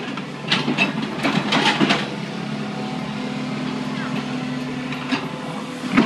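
Hydraulic excavator's diesel engine running steadily as it digs out a coconut tree root, with a few short sharp noises in the first two seconds and again about five seconds in.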